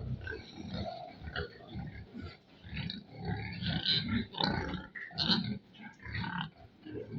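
Domestic pigs grunting, short irregular grunts following one another closely.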